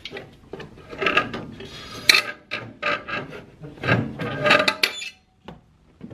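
A metal exhaust downpipe scraping, rubbing and knocking against the engine bay of a BMW M6 twin-turbo V8 as it is worked out by hand. The scraping comes in irregular bursts and is loudest about four seconds in.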